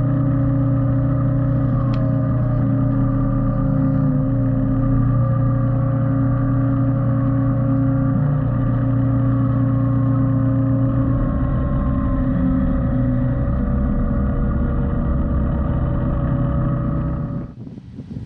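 Yanmar Vio-80 mini excavator's diesel engine running under load with a Lipa TLE-FS 90 forestry mulcher's hydraulically driven rotor spinning: a steady, loud drone with a whine above it. It breaks off suddenly near the end into a quieter, rougher noise.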